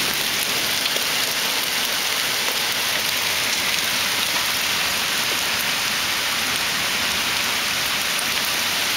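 Hail falling steadily on concrete steps and pavement: a dense, even hiss made of countless tiny ticks of ice pellets striking hard ground.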